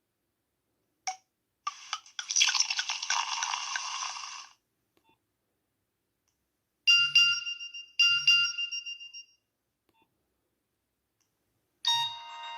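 Nokia 6101 flip phone playing a series of short ringtones and alert sounds through its small speaker. There is a click about a second in, then a bright, noisy jingle lasting nearly three seconds. Two identical chimes follow about a second apart, each with a low thud, and a new melody starts near the end.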